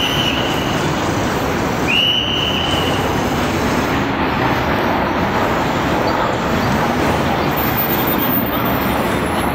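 Loud, steady city traffic rumble, with two brief high-pitched squeals: one right at the start and one lasting about a second, around two seconds in.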